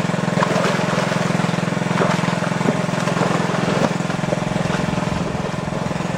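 A small engine running steadily at an even speed, with a fast, regular firing pulse.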